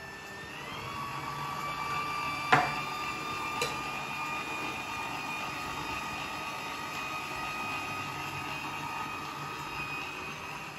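Electric stand mixer running, its beater working a thick batter of peanut butter, pumpkin purée and eggs in a steel bowl: a steady motor whine that rises in pitch within the first second. A sharp clack sounds about two and a half seconds in, and a lighter one a second later.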